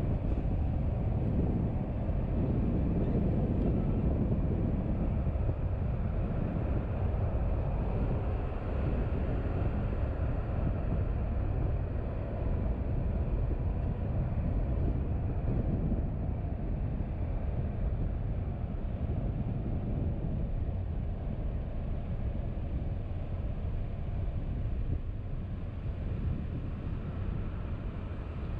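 Steady low rumble of a car driving: road and engine noise, with a faint steady hum on top.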